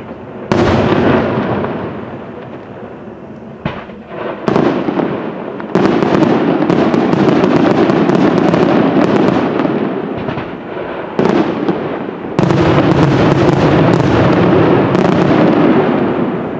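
Aerial firework shells bursting one after another in a dense barrage of bangs and crackling. Fresh loud volleys start about half a second in, again around five to six seconds in, and again around eleven to twelve seconds in.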